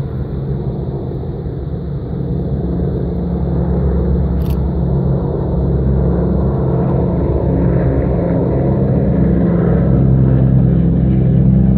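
Propeller engines of a firefighting water-bomber aircraft droning steadily, growing louder as the plane draws nearer. A brief click about four and a half seconds in.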